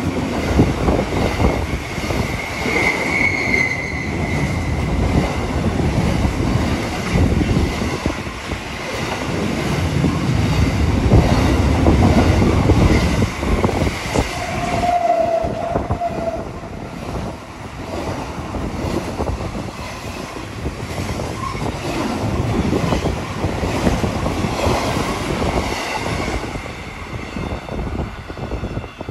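Container freight wagons rolling past close by, their wheels clattering over the rails. There is a brief high wheel squeal about three seconds in and a lower squeal around fifteen seconds in. The noise falls away near the end as the last wagon moves off.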